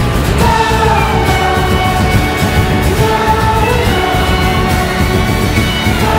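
Indie rock music: layered held notes that slide up and down in pitch over a dense, steady backing.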